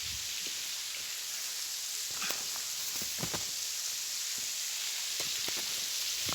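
A steady high hiss of falling water, with a few faint clicks.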